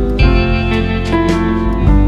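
Background music: gentle instrumental with piano or keyboard notes over a steady bass.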